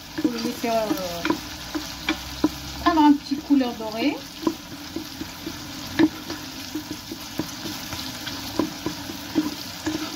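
Wooden spoon stirring diced onion frying in olive oil in a nonstick pot: a steady sizzle with irregular scrapes and knocks of the spoon against the pot. A few short pitched, gliding sounds come in the first four seconds.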